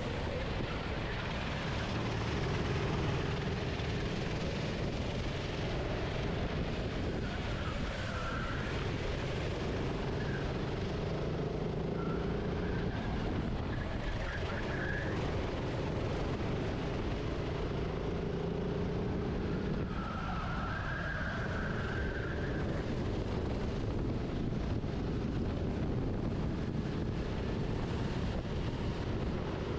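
Kart engine heard onboard, revving up and dropping back again and again as the kart laps the circuit, over a steady rush of noise.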